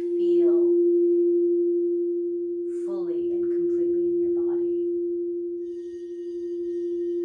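A frosted crystal singing bowl rings a single steady, sustained tone. Near the end a wand is drawn around another bowl's rim, adding faint high overtones above it.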